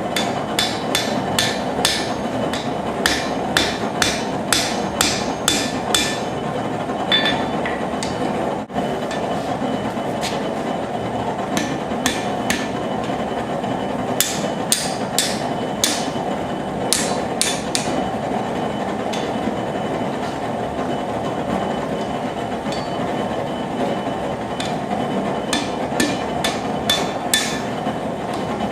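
Hand hammer striking hot rebar on an anvil in runs of ringing blows, about two a second, with pauses between runs, while the rebar is forged and bent into a spring. A steady propane forge roar runs underneath.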